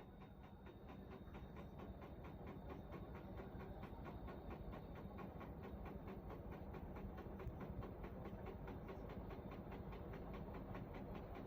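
Washing machine running, with a steady, even rhythm of knocks several times a second over a low rumble. It grows a little louder in the first couple of seconds.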